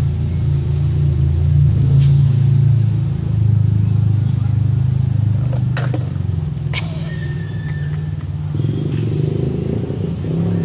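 Steady low rumble of a nearby motor vehicle's engine. About six seconds in, a plastic water bottle drops from a bench and clatters on the paving stones.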